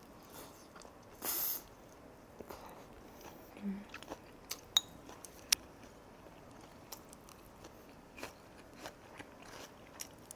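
A person biting and chewing food close to the microphone, with one louder crunchy bite about a second and a half in. Several sharp clicks follow, typical of utensils tapping a dish.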